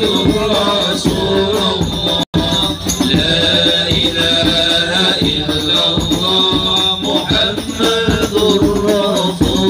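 A group of men singing an Arabic devotional chant together over rhythmic hand percussion with jingles. The sound cuts out completely for a moment about two seconds in.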